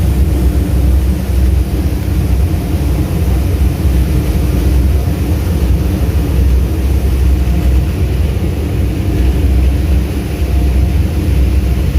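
Passenger boat's engines droning steadily, a deep rumble with a constant hum, heard on board.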